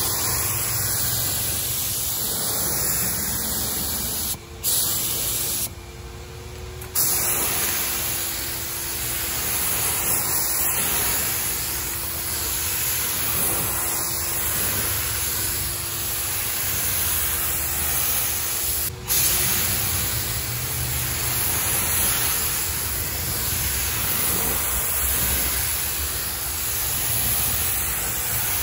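Compressed-air paint spray gun hissing steadily as it sprays clear coat onto a sanded headlight lens. The hiss breaks off briefly about four seconds in, for about a second around six seconds, and for a moment near nineteen seconds.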